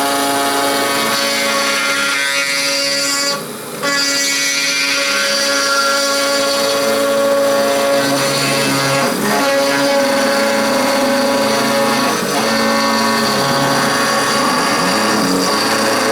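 CNC router spindle and end mill cutting O1 tool steel: a loud, steady, ringing metal-cutting whine made of several tones, with wavering lower tones and a brief dip about three and a half seconds in. The ringing is cutter chatter, which the owner puts down to a few spots in the router frame that need tightening.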